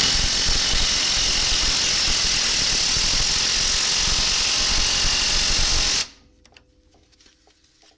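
A 3/8-inch impact wrench hammering continuously as it drives a press that pushes the old bushing sleeve out of a twin I-beam pivot arm, then stopping suddenly about six seconds in.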